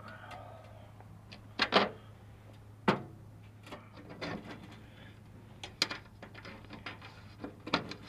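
Sheet-metal trunk floor patch panel being pushed and tapped into place against the 1957 Chevy Bel Air's trunk floor: a series of sharp metal knocks and clanks, a double knock about two seconds in, over a faint steady low hum.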